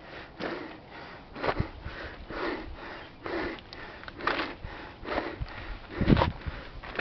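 A hiker's heavy breathing close to the microphone, one hard breath about every second, a sign of exhaustion after a steep climb. A louder breath with a low rumble comes near the end.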